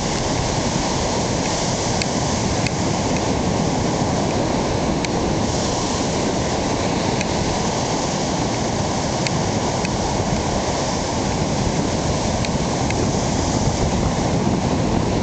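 Ocean surf breaking on the beach, a steady rush mixed with wind buffeting the microphone.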